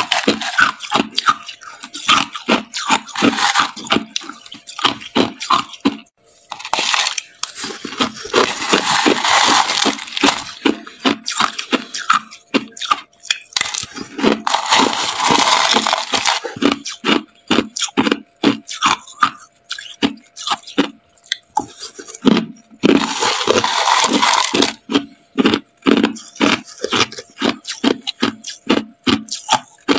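Crushed ice being chewed, a rapid run of crisp crunches, with longer stretches of gritty crunching rustle about a quarter of the way in, midway, and near the end.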